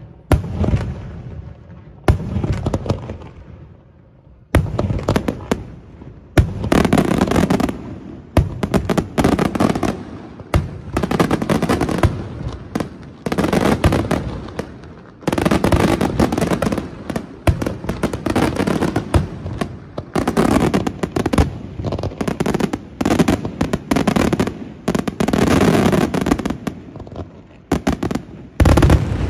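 Daytime fireworks display: aerial shells bursting in sharp bangs with crackling between them. Single bangs at first, then dense volleys from about six seconds in, with one strong bang near the end.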